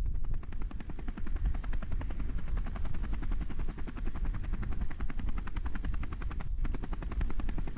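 Helicopter rotor chopping rapidly and steadily over a heavy low rumble.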